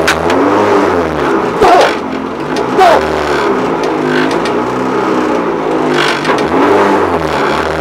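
Renault Clio R3's four-cylinder engine heard from inside the car at racing pace, revs climbing and dropping repeatedly through gear changes. Two short loud knocks stand out about two and three seconds in.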